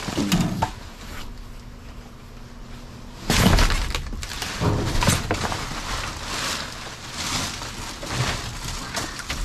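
Plastic trash bags and cardboard crinkling and crunching in irregular bursts as someone rummages through and steps on garbage inside a dumpster. It is louder from about a third of the way in.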